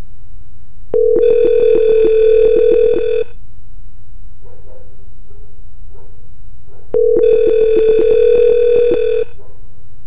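Softphone ringing for an incoming, unanswered SIP call: two pulsing electronic rings, each about two seconds long and about six seconds apart, in the regular on-off cadence of a ringing line.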